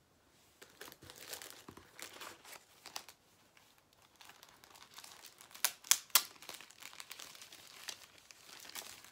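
Paper and plastic packaging of a jewelry subscription box crinkling and rustling as it is handled, in irregular crackles with a few sharper, louder ones about six seconds in.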